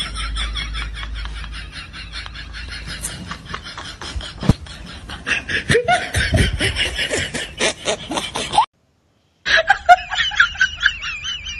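Laughter in quick, even pulses. It cuts to dead silence for under a second about nine seconds in, then starts again.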